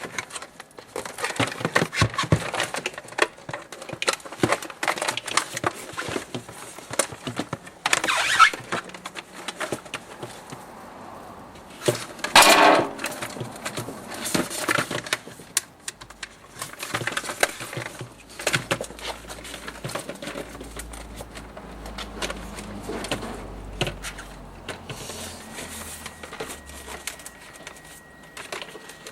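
Irregular clicks, knocks and rattles of objects being handled, with two louder scraping bursts about eight and twelve seconds in.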